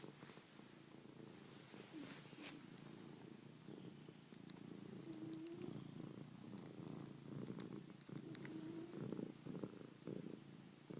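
Domestic cat purring continuously, a low, rough rumble with a few brief steadier tones mixed in.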